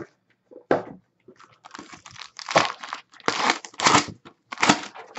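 Foil trading-card pack wrapper being torn open and crinkled by hand, in several short ripping and rustling bursts.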